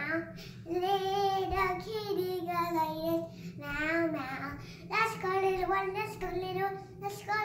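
A young girl singing a children's song solo, in phrases of long held, slightly wavering notes with short breaks between them.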